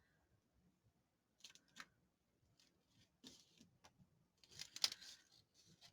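Faint paper-crafting sounds: a few scattered short snips and paper rustles, the loudest cluster about five seconds in.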